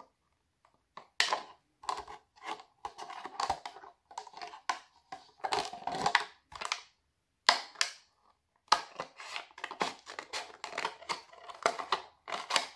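Scissors cutting down the side of a clear plastic drink cup into strips: a run of short, irregular snips through the plastic, starting about a second in, with brief pauses between cuts.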